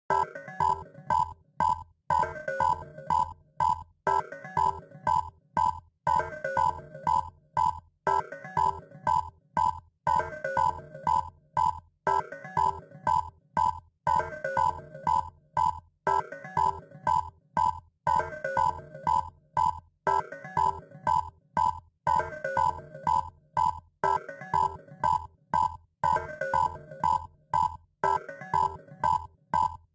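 Synthesized emergency-alert alarm: a quick run of short, high beeps over a low buzz, looping every two seconds without change.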